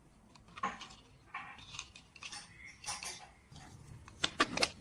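A series of irregular sharp clicks and clacks, with a quick cluster of three near the end.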